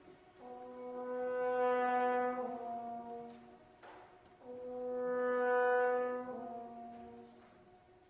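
Slow classical background music: a brass instrument plays two long swelling notes, each stepping down to a slightly lower note near its end, over a faint held chord.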